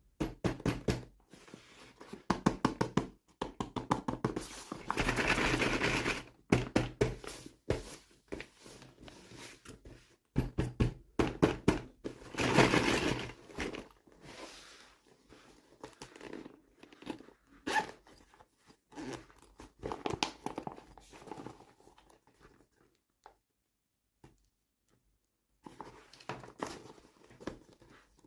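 Hands unboxing small plastic toys: irregular clicks, taps and knocks of plastic pieces and packaging, with two longer stretches of rustling or tearing packaging about five and twelve seconds in.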